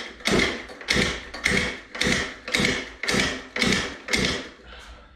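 Recoil pull starter of a high-compression Zenoah G23LH two-stroke scooter engine being yanked over and over, about two quick pulls a second, eight in all, stopping near the end. The engine does not fire.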